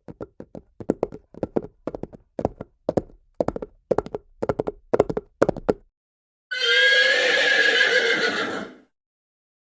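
Horse hooves clip-clopping in a steady rhythm for about six seconds, then stopping. Shortly after, a horse whinnies once for about two seconds, its pitch wavering.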